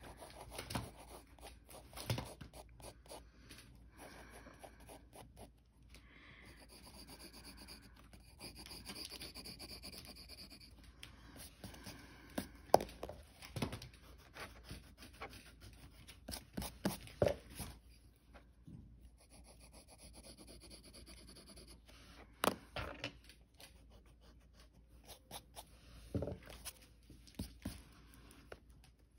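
Coloured pencil scratching across drawing paper and a hand rubbing over the sheet, in soft stretches with scattered light taps.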